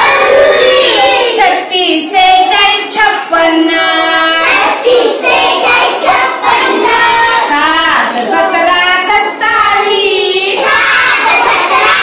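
A group of young first-grade children singing a Marathi number-recitation song in unison, chanting the numbers of the 1–60 chart in a sing-song tune with short breaks between phrases.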